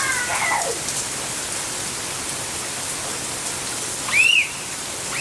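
Steady rain falling. About four seconds in comes a short, high squeal that rises and falls.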